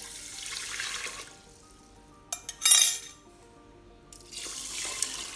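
Water pouring from a glass measuring jug onto raw rice in a rice cooker's inner pot, with one brief, louder sharp noise about three seconds in. Soft background music plays throughout.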